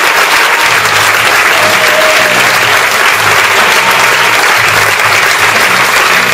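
Theatre audience applauding: dense, steady clapping from a full house. Low musical notes sound underneath from about a second in.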